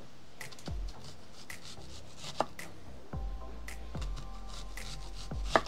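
Kitchen knife slicing a red onion into rings on an end-grain wooden cutting board: a short knock of the blade on the board about every half second, with two louder knocks, one mid-way and one near the end.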